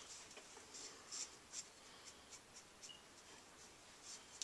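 Hairbrush strokes through hair: a run of short, soft swishes, about two or three a second.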